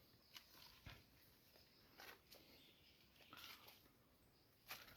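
Near silence, broken by a few faint short ticks now and then.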